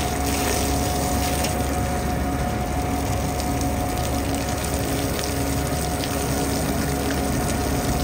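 Water spraying and running down the steel drum of a concrete mixer truck as it is rinsed after an acid wash, over the steady running of the truck's engine. The sound stays even throughout.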